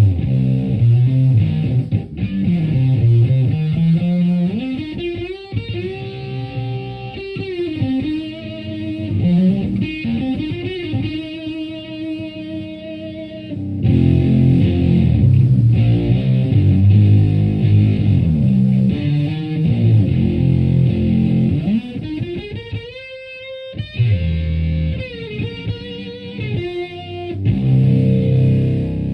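Electric guitar (Stratocaster) through a Univox Super-Fuzz pedal into a Marshall Plexi head and 4x12 cabinet, played with heavy fuzz distortion. Thick low chords and riffs alternate with single-note lead lines, with notes bent and slid up and down.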